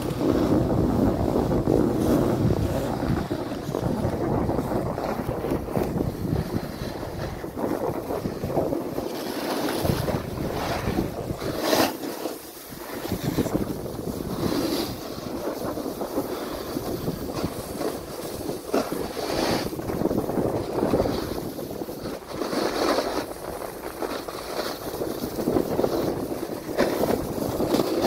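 Wind buffeting the microphone over a steady rushing hiss of sliding down packed snow, with scattered sharper scrapes; one loud scrape about twelve seconds in.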